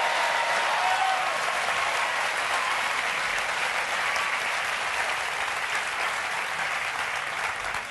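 Studio audience applauding, the clapping slowly tapering off.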